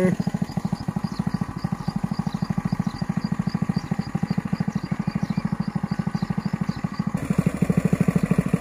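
Small engine running steadily with a rapid, even beat, louder near the end.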